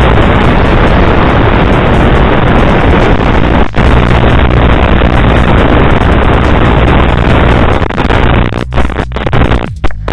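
Loud, steady rushing noise that drops out for an instant about a third of the way in, giving way near the end to electronic music with a choppy beat.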